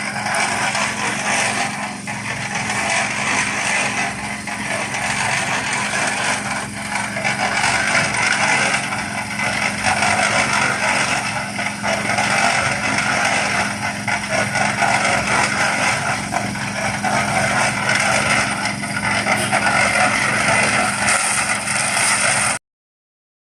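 Small engine running steadily with a constant hum, cutting off abruptly about a second before the end.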